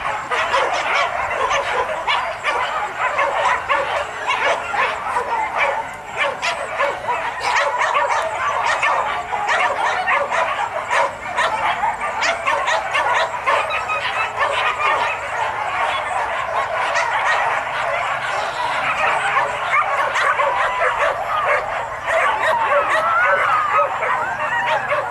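A large pack of hunting dogs yipping, barking and whining over one another in a steady, excited chorus, held on leashes before release for the boar chase.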